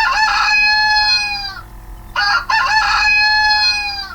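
Rooster crowing twice, each crow opening with a few short notes and running into one long held note that falls away at the end.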